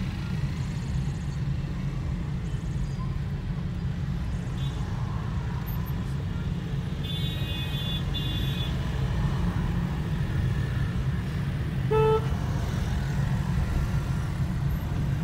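Steady low rumble of a car's engine and road noise, heard from inside the cabin. A high-pitched vehicle horn honks for about a second and a half about seven seconds in, and a short, lower honk comes about twelve seconds in.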